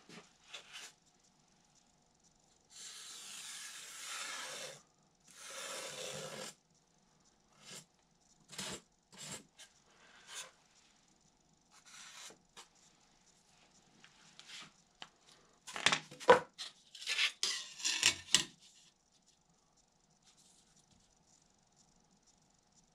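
Hands rubbing and sliding a foam wing core and a balsa-and-carbon spar stick on a workbench. There are two long rubbing passes a few seconds in, then scattered light clicks, and the loudest run of knocks and scrapes comes a little past the middle.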